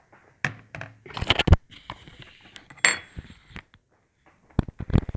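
Scattered clicks, knocks and scrapes of small metal objects being handled on a hard surface, with one ringing metallic clink about three seconds in: a knife, tiny phone screws and the phone being moved about.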